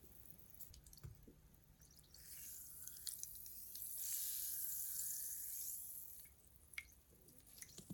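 Cola fizzing softly as an Oreo cookie is dunked in the glass: a hiss of bubbles that swells about two seconds in and fades about six seconds in. A few small drips and clicks follow as the cookie is lifted out.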